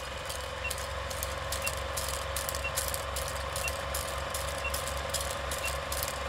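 Film-leader countdown sound effect: a projector's steady rattling run with crackle and clicks, and a short high beep about once a second as the numbers count down.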